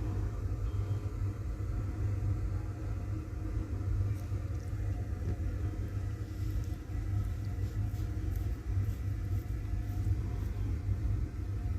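Steady low rumble, with a few faint light ticks in the middle.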